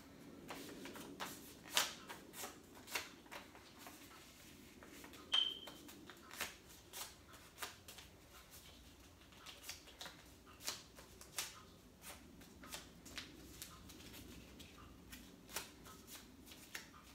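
A small paper slip being folded and rolled by hand: a run of soft paper crinkles and ticks, with a brief high-pitched squeak about five seconds in.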